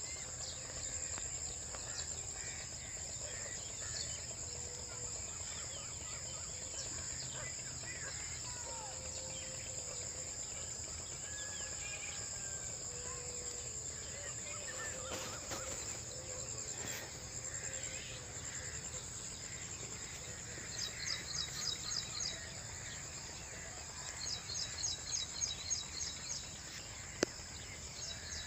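Steady high-pitched insect chorus with scattered bird calls over farmland. Twice in the second half a bird gives a quick run of sharp repeated notes, and there is a single click near the end.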